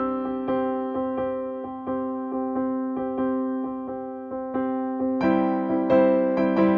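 Background piano music, notes struck in a steady rhythm, growing fuller about five seconds in.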